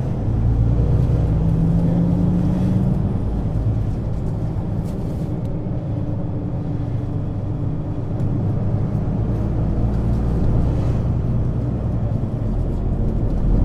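Mercedes-Benz Citaro C2 city bus's diesel engine running under way: a steady engine note for the first few seconds, then a lower, rougher stretch, and the note firms up again in the later part.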